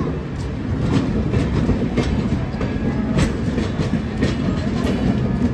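Sleeper coaches of an Indian Railways express train rolling past close by: a steady heavy rumble of wheels on rail, with sharp clacks recurring about once every half second to a second as the wheels cross rail joints.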